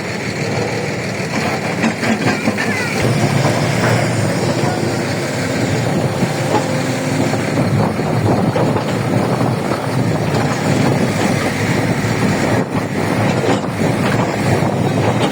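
Heavy diesel engine running under load, with continuous metallic rattling and clanking; it grows louder about three seconds in.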